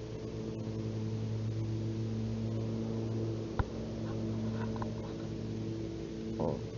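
Steady low mechanical hum made of several steady tones, with one sharp click a little past halfway.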